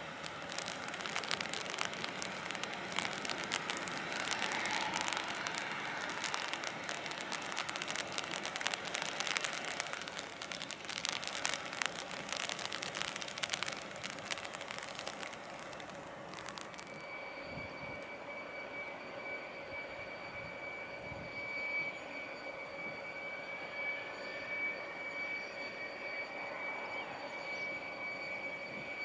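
Jet engines of a Boeing 737-800: first a broad rushing noise with dense crackle as the airliner taxis past. After an abrupt change a little over halfway through comes a steadier high-pitched fan whine made of several held tones, with a faint tone slowly rising near the end as thrust builds.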